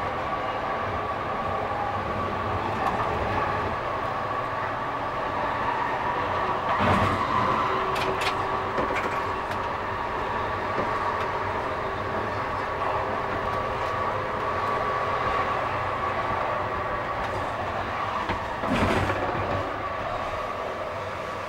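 C-Train light rail car running along the track, heard from inside at the front: a steady rolling noise with a humming tone, two louder wheel knocks, one about seven seconds in and one near the end, and a brief high squeal just after the first.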